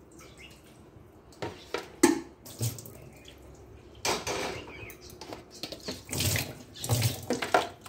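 Water poured from a mug into a steel kadai and swirled as the pan is rinsed, in several splashing bursts, with a sharp knock about two seconds in.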